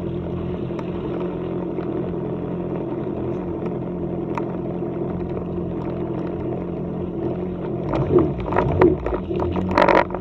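Yamaha WaveRunner personal watercraft engine running steadily at low speed while cruising. Louder, irregular rough noises come in over it in the last couple of seconds.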